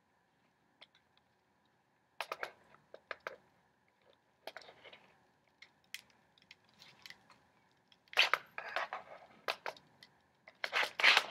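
A camera's quick-release plate clacking and scraping against a tripod head's clamp as it is worked into place, with its release button held in. The sound comes in several short bursts of clicks with pauses between, and it is busiest near the end.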